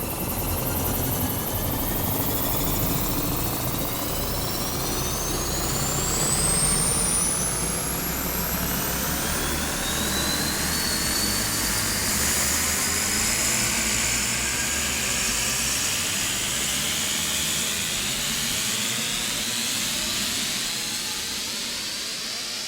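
Synthesized sci-fi 'arc reactor' effect: a dense, steady mechanical hum with several high tones gliding slowly upward, like a reactor spinning up. The low rumble thins out near the end.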